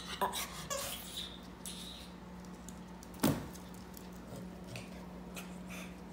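Dogs moving about on a furry blanket and a wooden floor: light rustling and small clicks, with one sharp thump about three seconds in, over a steady low hum.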